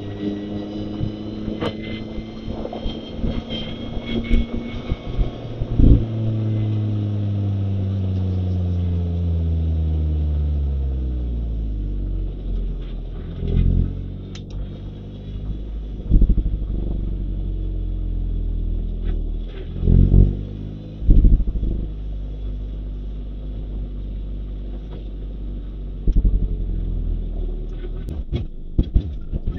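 A Mazda MX-5 Roadster's 1.5-litre four-cylinder engine, held at high revs at first, then falling steadily in pitch over several seconds as the car slows and settles into a low, steady drone. A few short thumps come through in the second half.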